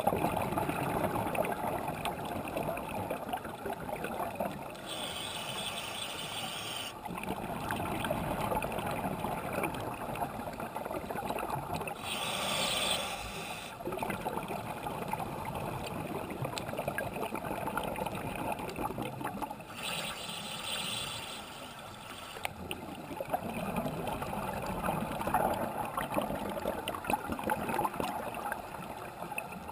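Scuba diving underwater: a diver's regulator breathing, with a hiss about every seven or eight seconds, three times, over a steady rush of bubbles and water.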